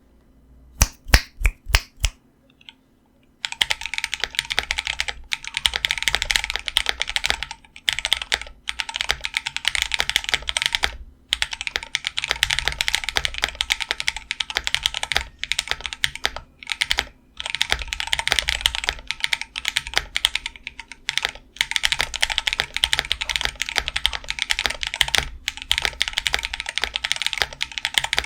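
Custom 60% mechanical keyboard (Freebird60 with a POM plate, lubed and filmed Tecsee Carrot switches) being typed on. First about five separate loud keystrokes, then from a few seconds in, fast continuous typing broken by short pauses.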